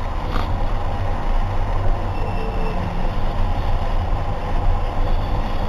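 Milk tea boiling hard in a pan over a gas burner on high flame, a steady rumble of flame and bubbling as the milk froths up.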